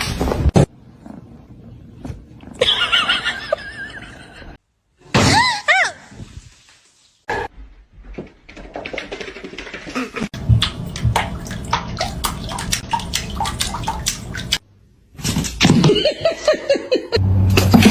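Short pitched cries that rise and fall, heard in separate bursts at about 3, 5 and 16 seconds in, like a kitten meowing. Between them is a stretch of rapid clicking over a low hum, and the sound cuts out abruptly several times.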